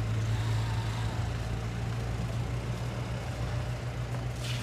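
A large engine idling with a steady low hum.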